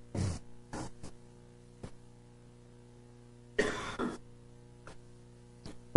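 A single short cough about three and a half seconds in, between a few soft clicks, over a faint steady electrical hum.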